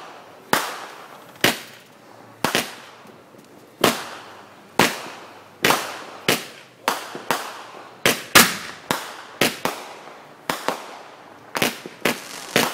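Consumer aerial fireworks bursting overhead: a string of sharp bangs and cracks at irregular intervals, each trailing off in an echo, coming faster and closer together from about halfway through.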